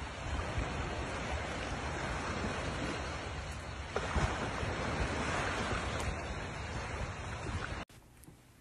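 Small ocean waves washing in over a shallow sandy beach, mixed with wind rumbling on the microphone. The sound cuts off abruptly near the end.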